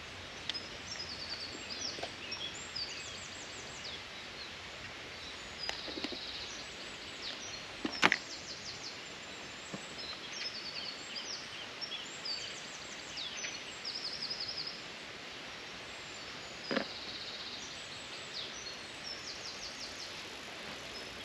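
Riverside ambience: songbirds singing repeated high chirping and trilling phrases over a steady hiss of running water. Sharp knocks come about eight seconds in and again about two-thirds of the way through, the first of them the loudest sound.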